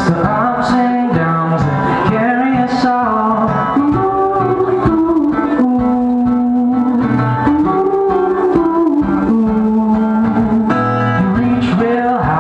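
Male voice singing long held notes over a strummed acoustic guitar, played live through a microphone and PA.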